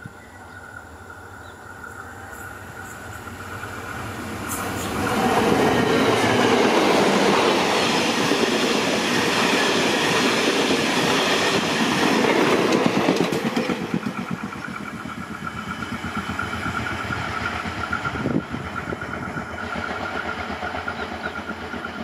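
A diesel-hauled passenger train of ex-JR Hokkaido 14-series coaches passing close by at speed. The rumble and wheel clatter build over the first few seconds and are loudest for about eight seconds as the coaches go by. They then fall away as the train moves off, with a single sharp knock near the end.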